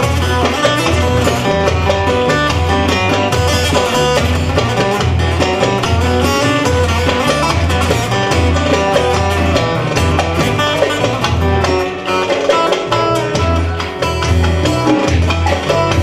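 Instrumental break of a live Turkish folk song: a bağlama (long-necked saz) plucks a busy melody over a darbuka and a steady low bass beat from a keyboard.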